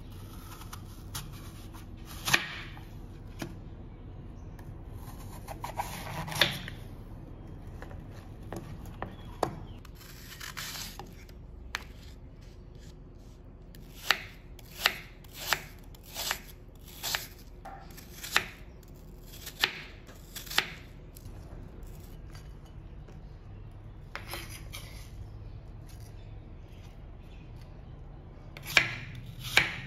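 Knife cutting peeled apples on a wooden chopping board. There are a few separate cuts, then a steady run of about eight chops a little more than half a second apart, and two more chops near the end.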